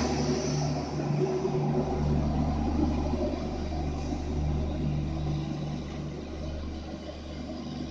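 Departing train's steady low hum and running noise, fading gradually as it moves away.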